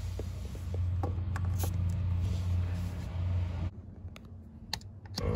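Tire inflator chuck clicking and scraping as it is pushed and locked onto a tire valve stem, over a steady low hum. After a quieter stretch there is a single sharp click near the end, then music begins.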